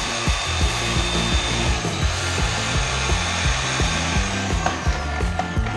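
Electric fillet knife running with a steady whine and hiss as it cuts and skins a fish fillet, winding down and stopping near the end. Background music with a steady bass beat plays underneath.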